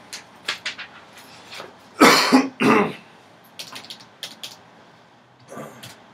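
A man coughs twice in quick succession about two seconds in, the loudest sound, with scattered light clicks before and after.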